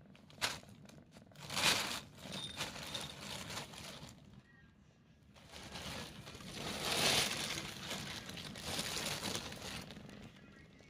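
Rustling and crinkling in several noisy stretches, the loudest about seven seconds in, like thin plastic or paper being crumpled and moved about.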